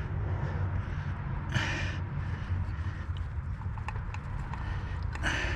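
A man breathing heavily as he strains to reach, with two loud breathy exhales, about a second and a half in and near the end. A few light clicks and a steady low hum sit underneath.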